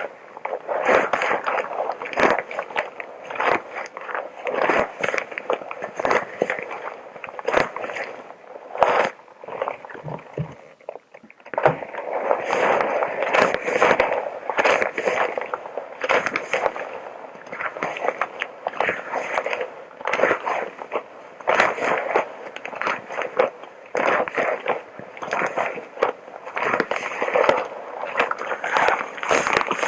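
Close-miked ASMR crinkling and rubbing: a dense run of crackles and scrapes, with a short lull about ten seconds in.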